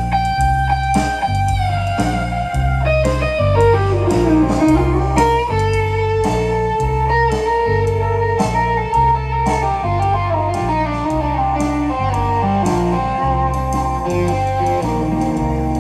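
Live blues-rock band playing an instrumental passage: an electric guitar solo over bass guitar and drums. The guitar holds a long note that slides slowly down in pitch, then plays a run of shorter notes, while the bass repeats a steady line of about two notes a second under cymbal strokes.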